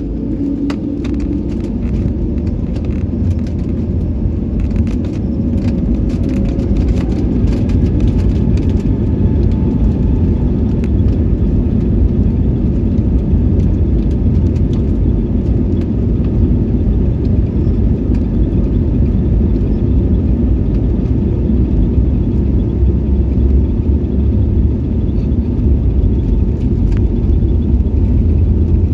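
Airliner engines and a low rumble heard from inside the passenger cabin during takeoff. The sound grows louder over the first several seconds, then holds steady.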